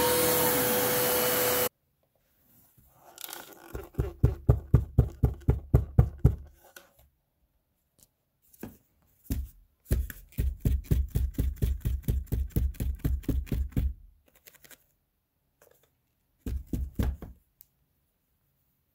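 Bissell Lift-Off Revolution Turbo upright vacuum running, then cutting off abruptly just under two seconds in. After that its clear plastic dust bin is knocked in three runs of quick taps, about six a second, shaking the packed hair and dirt out onto the carpet.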